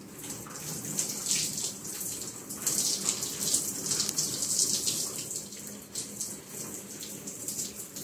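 Shower head spraying water, splashing on a person and the tiled stall, hissing steadily and rising and falling in level.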